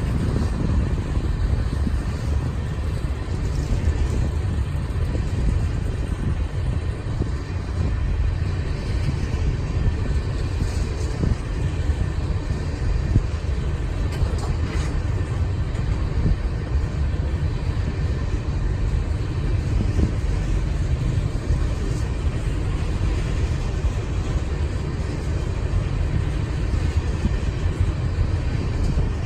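Loaded oil tank cars of a freight train rolling past, steel wheels on rail making a steady low rumble with no let-up.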